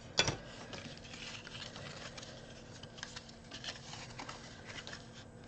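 Navy card stock being handled and folded into a small box by hand: a sharp tap just after the start, then quiet paper rustling with a few light ticks.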